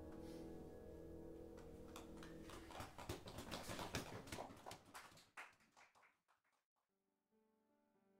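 Last chord of an upright piano ringing out and fading. About two seconds in, a few seconds of dense, irregular clicks and noise rise and die away into near silence, and soft piano music begins near the end.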